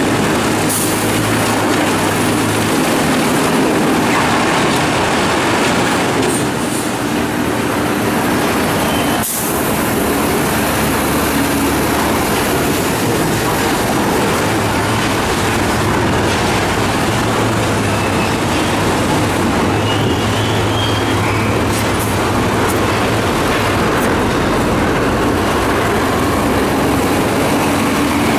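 Sinotruk HOWO dump truck's diesel engine running steadily with the tipper bed raised on its hydraulic hoist, while the load of rock and rubble slides out of the bed with a continuous rumbling rattle.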